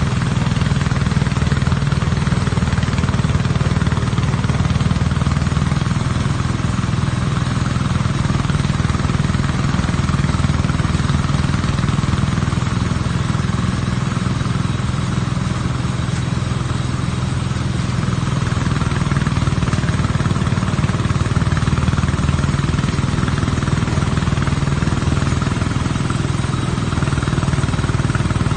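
Engine of rice harvesting machinery running steadily at constant speed.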